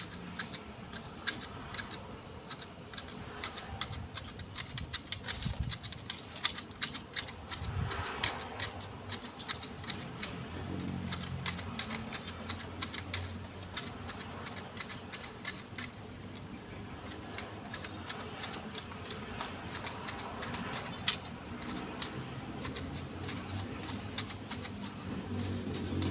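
Hand shears snipping through the small stems of a Fukien tea hedge, a quick, irregular run of sharp clicks, several a second.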